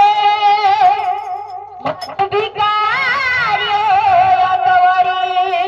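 A woman singing a Marathi song in long held notes with a wavering, ornamented pitch, pausing briefly about two seconds in.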